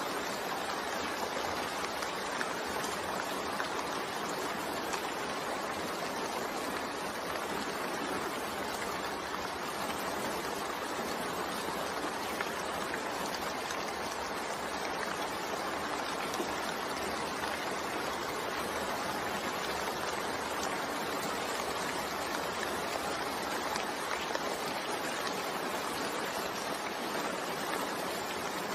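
Steady rain falling, an even continuous hiss of drops with no pauses.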